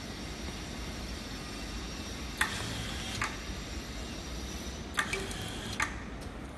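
Tabletop wire-flag labeling machine clicking as it applies labels: two pairs of sharp clicks, each pair under a second apart, over a low steady motor hum.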